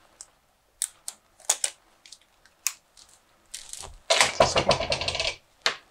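Handling noise from a coiled white USB power-supply cable being untied: a few sharp little clicks and ticks as the tie is worked off, then a rustling, scraping stretch of about a second and a half as the cable is pulled out of its coil.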